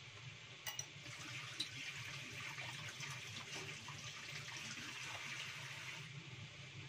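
Water running from a kitchen tap into a stainless steel sink, starting with a light click about a second in and stopping shortly before the end.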